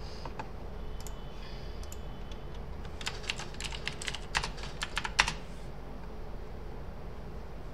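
Typing on a computer keyboard: a quick run of keystrokes starting about three seconds in and lasting about two seconds, with a few single clicks before it, over a steady low hum.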